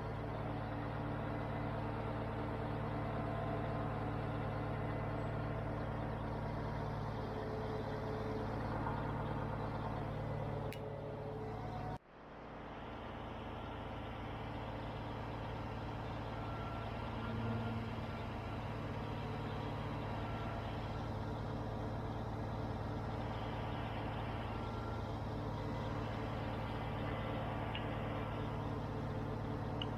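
Large diesel engine running steadily with an even low drone. About twelve seconds in the sound drops out abruptly and swells back up.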